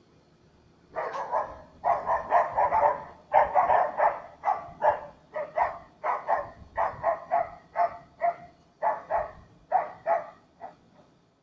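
Dog barking in a long run of quick, repeated barks, about two a second, starting about a second in and thinning out near the end.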